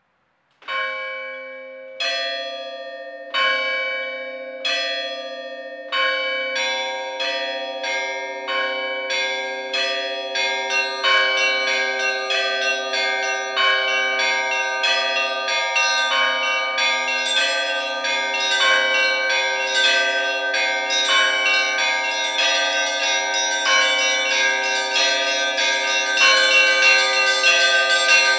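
Russian church bells rung from a belfry. It opens with single strokes about every second and a half, then from about six seconds in more bells join and the strokes quicken into dense ringing that keeps building.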